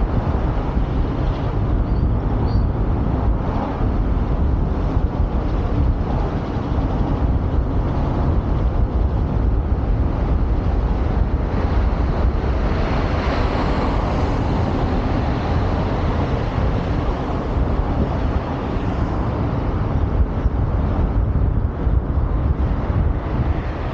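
Steady wind and road noise from a moving vehicle, with wind buffeting the microphone in a low, constant rumble. About halfway through, a hiss swells briefly, as from a passing vehicle or a gust.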